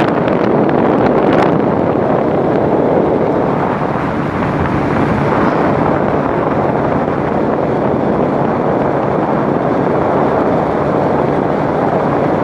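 Wind buffeting the microphone: a loud, steady rush with no distinct tones, with a little crackle in the first second or so.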